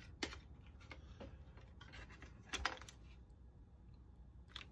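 Light clicks and clatter of a model locomotive's small speaker and its grilled housing being handled and worked loose. There are a few scattered knocks, with the loudest cluster about two and a half seconds in.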